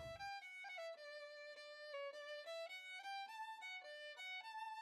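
Background music: a solo fiddle playing a quick melody, one note after another.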